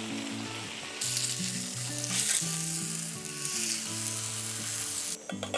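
A piece of meat frying on a round grill pan over a portable gas stove, sizzling loudly from about a second in until it cuts off shortly before the end. Soft background music plays underneath.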